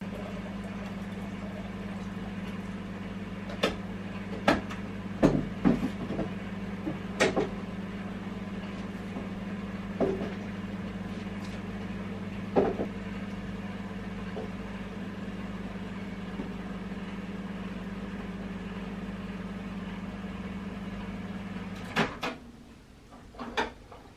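Microwave oven running with a steady low hum and scattered clicks and knocks, shutting off with a click about 22 seconds in, followed by a few sharp clicks.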